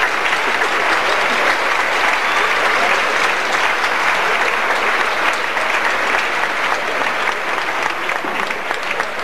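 Audience applauding: dense, steady clapping from a large crowd, easing slightly near the end.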